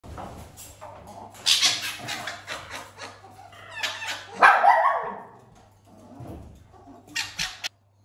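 A scuffle between caique parrots and a fennec fox at a feeder: loud, harsh screeches and yips come in several bursts. The loudest, with a falling pitch, comes about halfway through, and a last quick cluster comes near the end.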